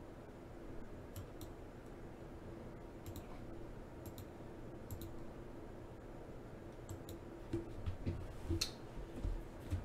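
Computer mouse clicking: scattered sharp clicks, several in quick pairs, the strongest near the end, over a faint steady low hum.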